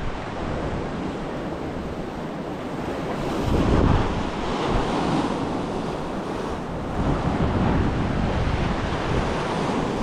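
Sea waves washing and breaking, with wind buffeting the microphone; the surf swells louder about four seconds in.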